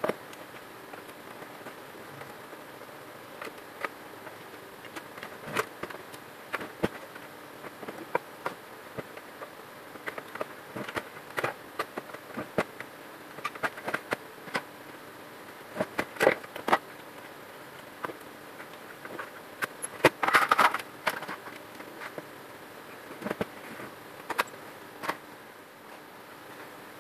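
HP LaserJet 1010 laser printer running with a steady hum and irregular sharp clicks and crackles from its gear train, densest about three-quarters of the way through. The noise comes from the damaged main drive gear that makes the printer jam.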